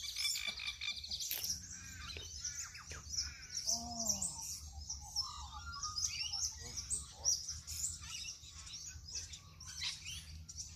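Small birds chirping and twittering continuously, a dense chorus of quick high chirps.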